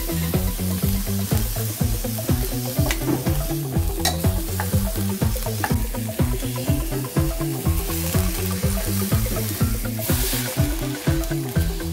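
Whole chicken sizzling in a hot pot as it is stirred and turned with a wooden spatula, with scattered clicks of the spatula on the pot; about ten seconds in, a louder hiss as water is poured onto it. Background music with a steady bass line runs under it.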